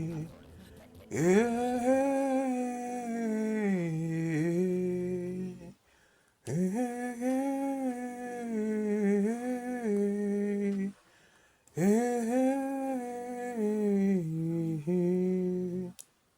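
A single voice humming a slow, wordless worship melody in three long held phrases, with a short pause between each.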